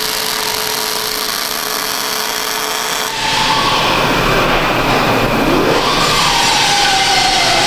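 An angle grinder running, its whine dipping and rising in pitch. It gets louder about three seconds in, after a steady hum.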